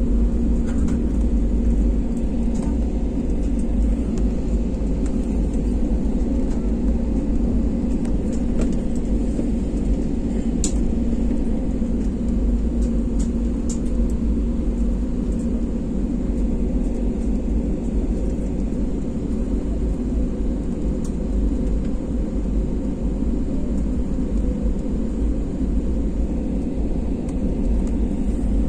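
Cabin noise of an Airbus A320-family airliner taxiing: the jet engines at low thrust and the wheels rolling give a steady low rumble with a constant hum.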